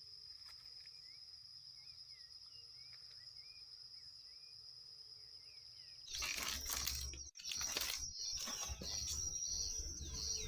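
A steady high insect drone with a bird chirping over and over, quiet. About six seconds in, a loud rustling and knocking noise comes in suddenly and covers it.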